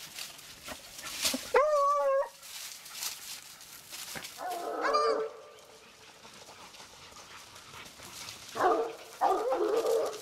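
Dogs yelping and whining: a drawn-out, high yelp about two seconds in, another around the middle, and a run of yelps near the end.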